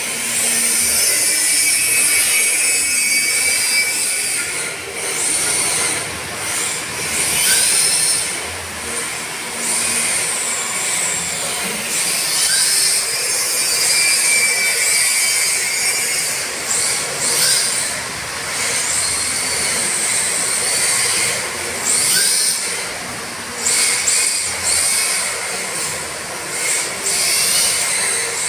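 Two electric RC drift cars sliding on a polished tile floor: the hard drift tyres hiss and squeal across the tile while the electric motors whine up and down in pitch, the sound swelling and easing in waves as the cars accelerate and slide.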